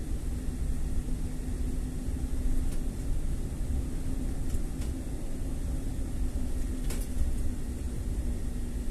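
Car driving: a steady low rumble of engine and road noise with a faint steady hum, and a few faint ticks.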